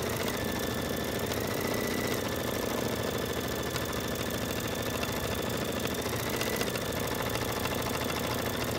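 Baby Lock embroidery machine stitching out a design: a steady, fast needle clatter over the motor's running, unbroken throughout.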